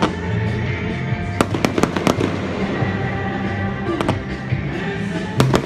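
Aerial fireworks bursting in irregular sharp bangs and crackles, the strongest cluster about a second and a half in and another just before the end, with music playing underneath.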